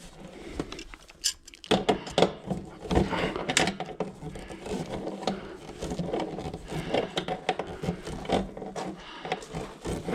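Hands-on work handling metal conduit and tools: irregular rubbing, scraping and clicking, starting about a second and a half in.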